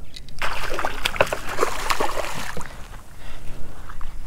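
A hooked redfish (red drum) thrashing and splashing at the water's surface beside the kayak, a burst of splashing that starts about half a second in and lasts about two seconds before settling.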